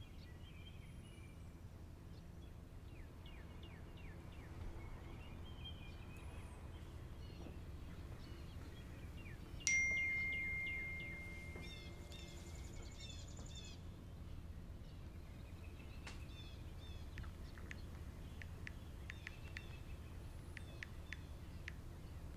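Quiet room ambience with a low steady hum and scattered high bird chirps. About ten seconds in, a single bell-like ding rings out and fades away over a few seconds.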